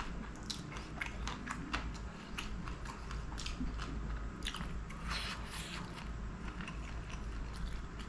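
Close-miked chewing of a mouthful of food: irregular wet mouth clicks and smacks, with a longer squelchy stretch about five seconds in.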